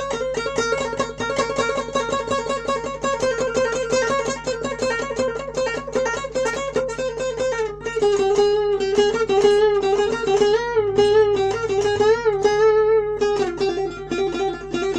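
Guitar played solo: a quick run of picked notes with bent, wavering notes, the melody dropping lower about eight seconds in.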